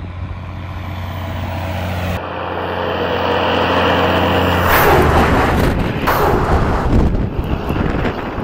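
A motor vehicle's engine running, growing steadily louder until it is loudest about five to seven seconds in, then easing off near the end.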